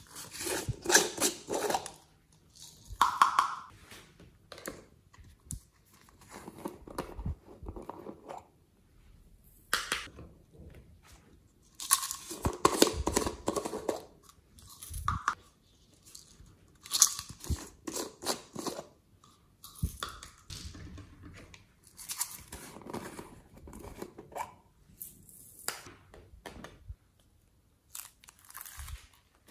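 Hands squeezing and opening small plastic toy containers and pouring glitter and sprinkles onto slime: irregular bursts of crinkly crunching and plastic clicks, with quiet gaps between them.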